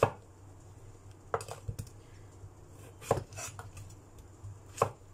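Cleaver chopping a peeled hairy gourd (cikwa) on a wooden cutting board: four separate chops, about one and a half seconds apart.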